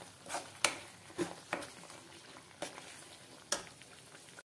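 Metal ladle stirring thick masala paste in a steel kadhai: a series of irregular scrapes and knocks of the ladle against the pan, over a faint sizzle of the paste frying in oil.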